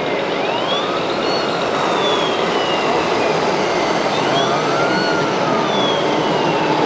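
A wailing siren, its pitch sweeping up and slowly back down twice, over a steady noisy background.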